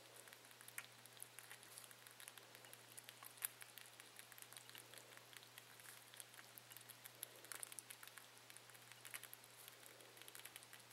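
Faint, irregular small wet clicks of a baby cottontail rabbit suckling and lapping at the tip of a feeding syringe, over a low steady hum.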